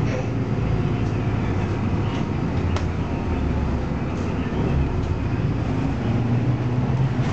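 Engine drone and road noise heard from inside a moving single-deck bus, steady throughout, with a single sharp click about three seconds in.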